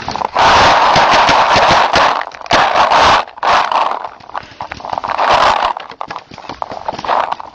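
Paintball markers firing in rapid bursts of popping shots, several bursts a couple of seconds long with short gaps between them, over loud rustling and scraping close to the microphone.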